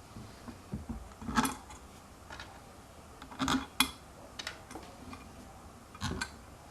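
Screws being fitted to hold a hoverboard sensor pad in place: a handful of small metallic clicks and knocks spread irregularly, the sharpest pair about three and a half seconds in.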